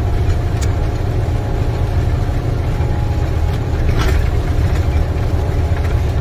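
International semi truck's MaxxForce 13 diesel engine running steadily at highway speed, heard from inside the cab with road and tyre noise. A brief tick sounds about four seconds in.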